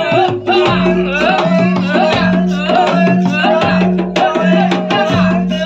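Dongkrek accompaniment music: drums and other struck percussion in a steady rhythm over held ringing notes, with a low note sounding about every three-quarters of a second.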